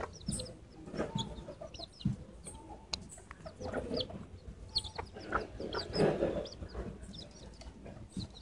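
Young feral chickens clucking, with many short, high calls, as they peck food from an open hand. The louder clucks come in bursts about a second, four, five and six seconds in.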